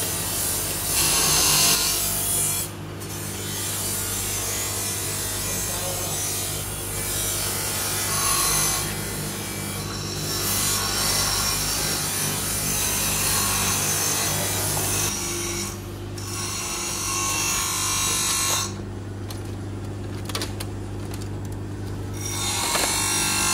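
Steel plate armor rubbing and scraping as the wearer bends the arms and legs, its overlapping lames sliding over one another, over a steady low mechanical hum. The sound breaks off briefly several times.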